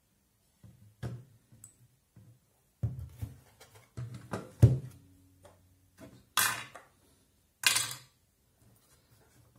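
Hollow knocks and clicks of a rechargeable spotlight's plastic housing halves and loose parts being handled and set down on a table, with two short scraping rasps about two-thirds of the way through.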